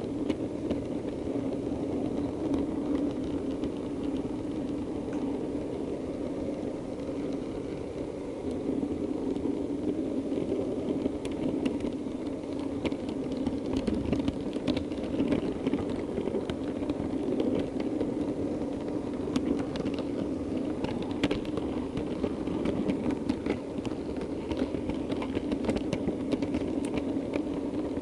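Model DMU running along the layout track: a steady mechanical hum, with sharp clicks coming more often from about a third of the way in as the wheels run over rail joints and pointwork.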